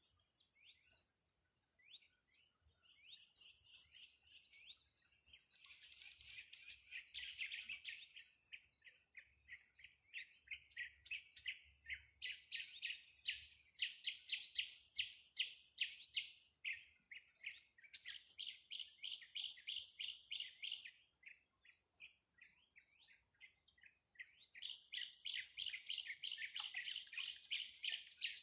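A songbird calling in long runs of rapid, short chirps, several a second, broken by brief pauses.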